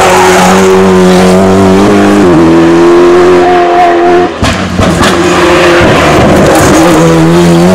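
Alpine A110 RGT rally car's turbocharged four-cylinder engine running hard at high revs. The pitch holds steady, steps up about two seconds in, drops out briefly about four seconds in on a lift or gear change, then comes back and climbs again near the end.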